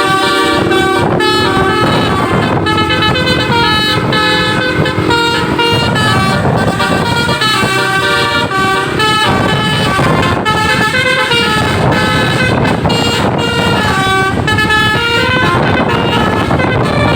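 Basuri telolet bus horn, a set of horn trumpets driven by a melody module, playing a tune in quick stepping notes with several tones sounding together. A steady low rumble runs underneath.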